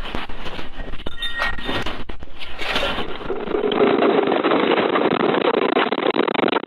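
Dense rumbling noise full of rattling clicks. About three seconds in it switches to a steadier, denser roar, still crackling with rattles.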